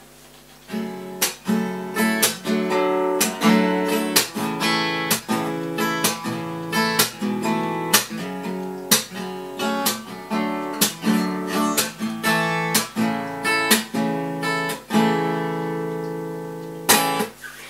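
Acoustic guitar played solo, strummed and picked chords in a steady rhythm. It ends on a chord left to ring, followed by a sharp knock near the end.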